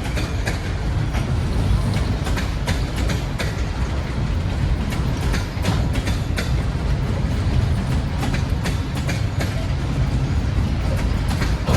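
Freight train rolling past on the rails: a deep, steady rumble with a stream of sharp clicks from the wheels passing over rail joints.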